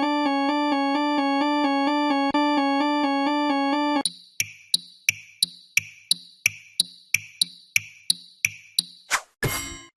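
Railroad crossing warning sounds: a synthesized alarm tone alternating steadily between two close pitches for about four seconds, then a crossing bell dinging about three times a second, then a few louder clangs near the end.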